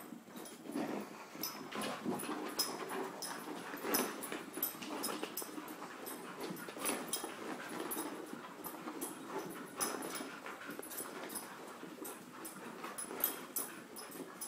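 Puppies playing together, a continuous scuffle of movement with frequent small clicks and knocks.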